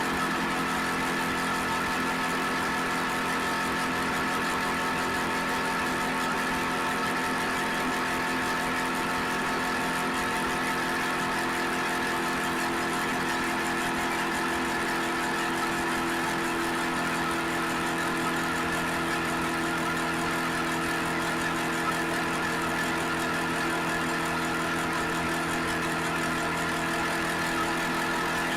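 Suzuki SV650X's 645 cc V-twin engine running at a steady, unchanging engine speed, picked up by an action camera.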